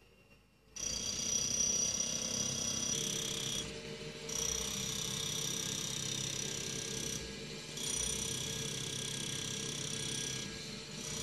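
After a moment of near silence, power equipment runs steadily: a high-pitched whine over a low drone from an electric breaker and the portable generator that powers it. The whine eases briefly three times, about every three to four seconds.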